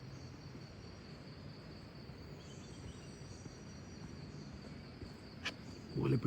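Rainforest insects making a steady, high, thin drone, with one sharp click about five and a half seconds in.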